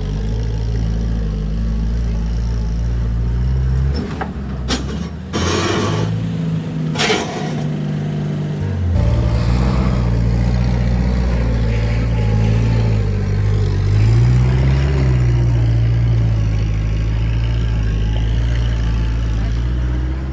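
Flat-fender Jeep engine running at low revs, the revs rising and falling. About four seconds in the engine note drops away for several seconds, with a few brief rushing noises. It picks up again about nine seconds in.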